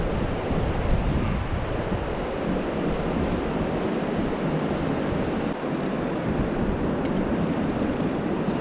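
Wind buffeting the microphone: a steady rushing noise with low rumbling gusts.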